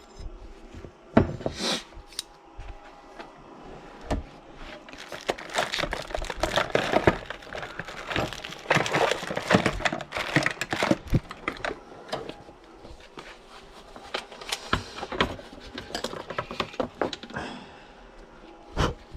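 Small metal parts and tools being handled on a workbench: irregular clinks, taps and scraping with some rustling, busiest in the middle, with a sharp knock about a second in and another near the end.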